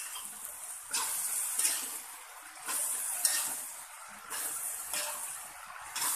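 Steel spatula stirring and scraping chicken with taro stems and leaves around a wok, a scraping stroke about every second, over a steady sizzle from the hot pan.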